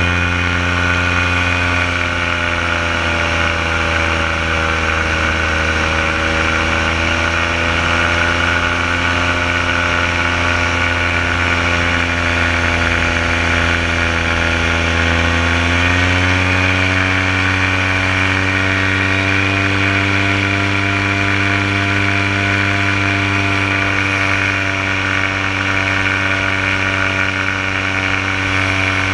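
Paramotor engine and propeller running steadily in flight. The pitch rises a little about halfway through as the throttle is opened, then holds steady.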